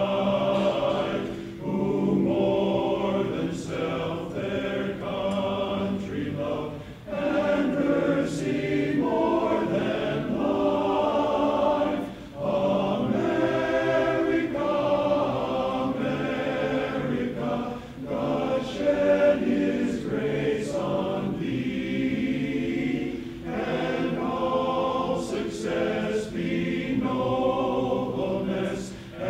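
Men's barbershop chorus singing a cappella in close harmony, in sustained phrases with brief breaks for breath every few seconds.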